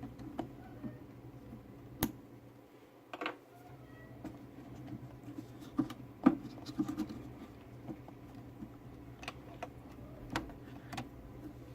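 Scattered light clicks, taps and rustling of a cut wire and small plastic parts being handled and pushed through a hole, over a faint steady hum. The sharpest click comes about 2 seconds in.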